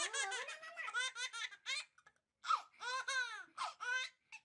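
Baby laughing hard in repeated bursts of high giggles, with a short break about two seconds in before longer laughs resume.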